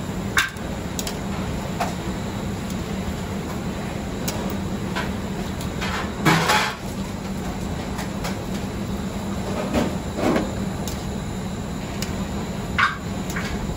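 Steady drone of a commercial kitchen's gas burners and exhaust, with scattered metal clinks and knocks as a wire noodle strainer is lowered and shaken in a stockpot of boiling water, blanching egg noodles; a louder rush and clatter comes about six seconds in.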